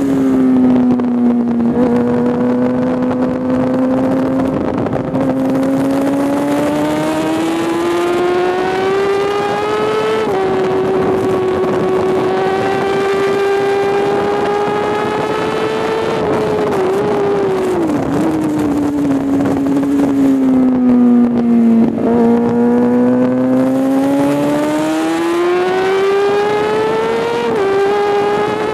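Inline-four sport bike engine, likely a Kawasaki ZX-6R, at high revs on track. Its pitch climbs slowly under throttle, drops sharply at gear changes (one about a third of the way in and another near the end), and sags and wavers while slowing for corners. Wind rush on the camera runs underneath.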